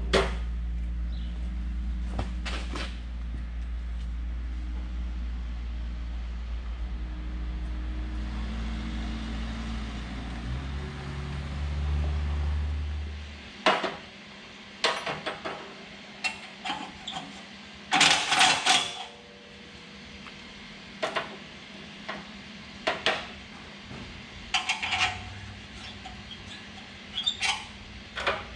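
A steady low machine hum swells briefly and then cuts off about halfway through. After it come scattered sharp metallic clanks and clinks, with a loud cluster near the middle, like metal tools and parts being handled.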